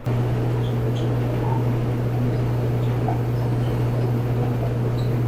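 Whirlpool clothes dryer running with a steady low drone that starts suddenly. It is the noise of worn rear drum support roller wheels, which the technician is pretty certain are the cause.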